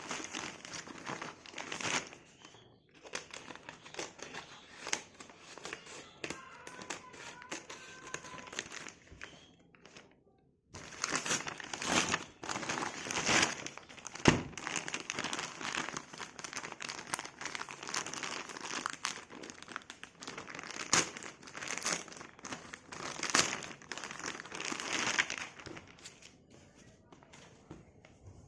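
Plastic packaging crinkling and rustling as a parcel is handled and opened by hand, with many sharp crackles. There is a brief pause about ten seconds in, and it grows quieter near the end.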